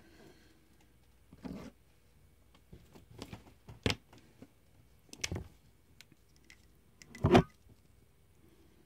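A few short, separate rustles and scrapes, about five in all; the loudest comes about seven seconds in.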